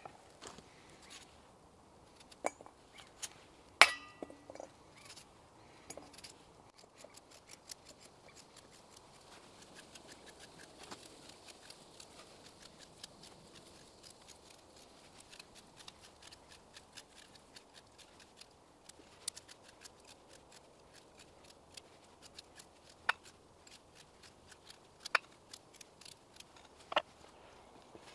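Kitchen knife cutting raw vegetables by hand: chopping carrots on a wooden board and slicing potato into a steel bowl. Quick run of fine cutting clicks, with a few louder sharp clinks and knocks.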